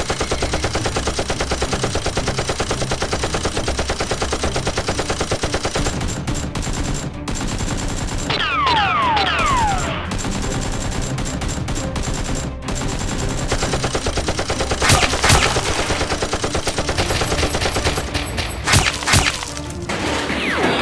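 Sustained rapid automatic gunfire, one dense stream of shots, with a few falling whistle-like tones about eight seconds in and louder bursts of fire near the end.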